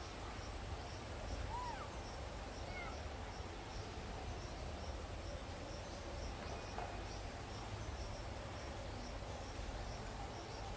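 Forest ambience: an insect chirping in a steady rhythm of short high pulses, about three a second, over a low rumble, with a few brief chirps in the first few seconds.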